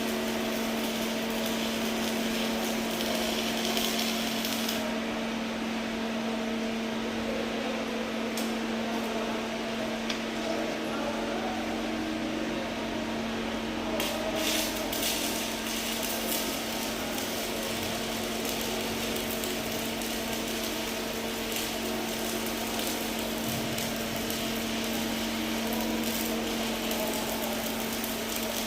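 Welding work: a steady machine hum under a hissing, crackling noise, with brighter crackly stretches at the start and about halfway through.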